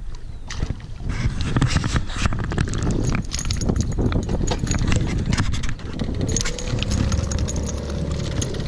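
Rapid clatter of clicks and knocks in a small aluminum boat while a pickerel is fought. From about six seconds in, the steady whine of a baitcasting reel being cranked joins it.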